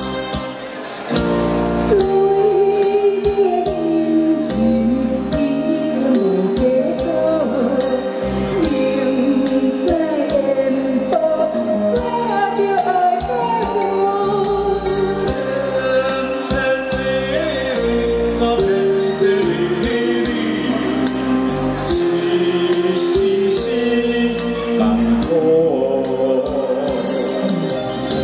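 A man and a woman singing a Mandarin pop duet over amplified backing music with a steady beat; the vocal comes in about a second in after a short instrumental passage.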